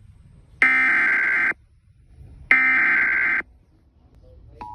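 Emergency Alert System SAME header: the second and third of its three digital data bursts, each a harsh, buzzy electronic screech of about a second with a short gap between. A click comes near the end, as the steady attention tone begins.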